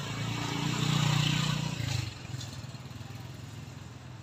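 A motor vehicle passing close by, its engine hum growing to a peak about a second in and fading away after about two seconds.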